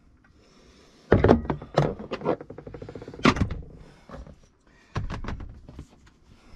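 Several thunks and knocks as tools and loose parts are handled and set down on a rubber cargo floor mat: a cluster about a second in, a single sharp knock a little after three seconds, and another cluster around five seconds.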